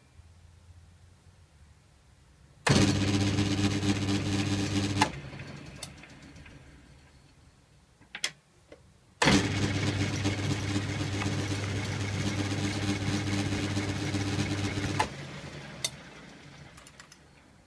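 Metal lathe's electric motor switched on twice, humming steadily, first for about two and a half seconds and then for about six seconds. Each run cuts off suddenly and fades away as the chuck spins down, with a couple of sharp clicks in between.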